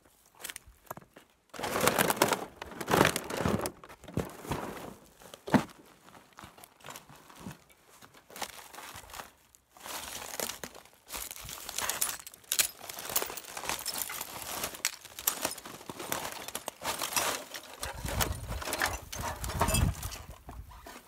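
Irregular crinkling and crackling, as of plastic and debris being handled or trodden, coming and going in uneven spells. A low rumble joins near the end.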